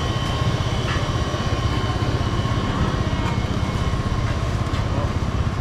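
A steady low mechanical rumble with a constant faint whine, like a running engine.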